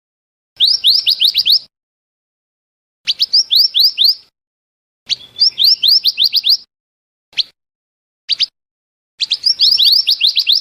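Recorded song of a scarlet minivet, used as a bird-lure call: phrases of five to seven quick, rising whistled notes, each phrase about a second long, coming four times with a couple of single notes between them.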